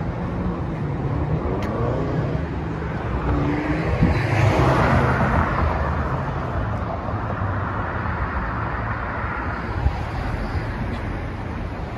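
City street traffic at an intersection: cars driving past, with one passing close and loudest about four seconds in.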